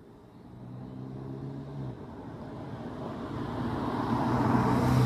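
A car approaching along the road, its engine and tyre noise growing steadily louder and closest near the end.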